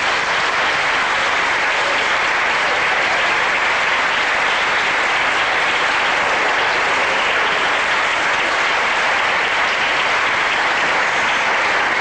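A crowd applauding, a steady, sustained round of clapping.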